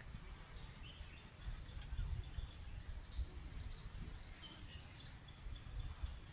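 Small songbirds chirping intermittently with short high notes, with a longer high whistled phrase in the middle, over a low background rumble.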